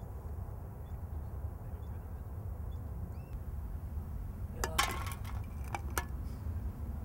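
Steady low rumble of a car driving, with a short burst of clinks and rattles about five seconds in.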